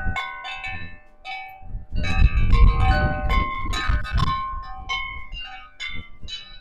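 A Bar Harbor bell wind chime ringing again and again in gusty wind, its struck tones at several pitches overlapping as they ring on. Wind buffets the microphone, hardest in a gust about two seconds in.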